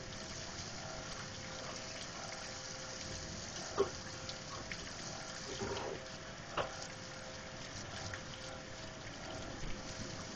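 Steady heavy rain falling during a thunderstorm, with two short sharp taps about four and six and a half seconds in.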